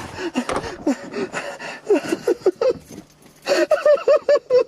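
An unidentified animal calling: a string of short, pitched cries that bend up and down, with a quick run of them a little past halfway.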